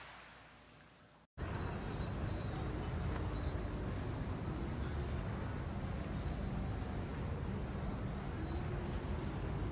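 A fading rushing noise cuts off about a second in, then the steady low rumble of a car driving along the road.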